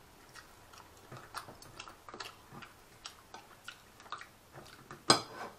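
Knife and fork cutting a roast goose with crisp-roasted skin on a plate: irregular light clicks and scrapes, with one louder clink about five seconds in.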